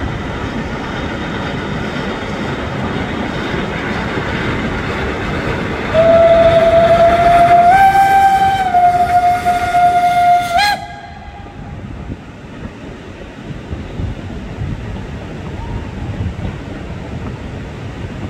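Mallet No. 414 steam locomotive running past, then one long blast of its steam whistle, about five seconds, stepping slightly up in pitch midway and back down before cutting off suddenly. Afterwards the passenger coaches roll by with a quieter rattle of wheels on rail.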